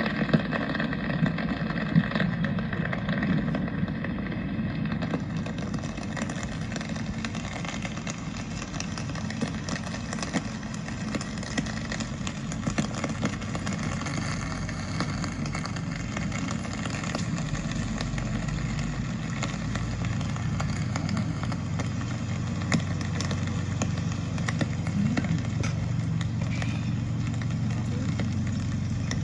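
City street ambience: a steady hum of traffic with vehicles passing, and voices of passersby.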